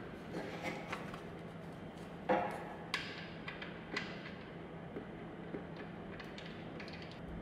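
Light scattered clicks and taps of metal being handled as the fill plug is threaded back by hand into the ZF 6-speed manual transmission's aluminium case after the oil top-up; the sharpest click comes about two seconds in.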